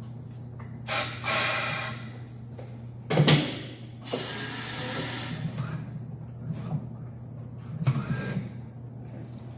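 Tire changer machine working a large mud tire's bead onto the wheel: bursts of hissing and scraping, a loud clunk about three seconds in, and short squeaks near the end, over a steady hum.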